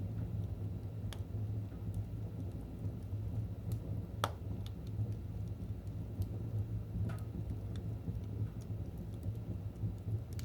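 Fire burning in a fireplace: a steady low rumble with scattered sharp crackles and pops, the loudest about four seconds in.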